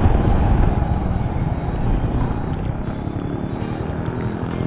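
Motorcycle engine running steadily while riding along a road, with wind rushing over the microphone. The engine eases off slightly partway through and then picks up again.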